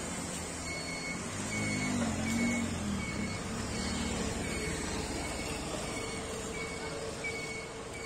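Outdoor street ambience: a steady noise of traffic, with a short high chirp or beep repeating about every 0.7 seconds.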